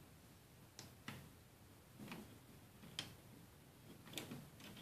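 Near silence: quiet room tone with five or six faint, short clicks at irregular intervals, about one a second.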